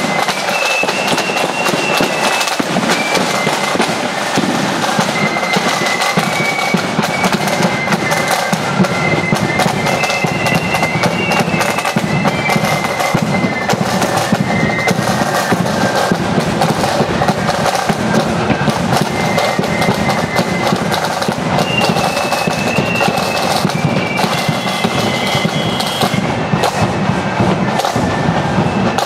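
Marching flute band playing: a flute melody over a dense, rapid rattle of side drums and a bass drum beat.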